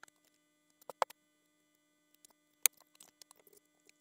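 A few sharp knocks and small clicks of things being handled and set down on a tabletop, the loudest about a second in and again near the three-quarter mark. A steady faint electrical hum lies underneath.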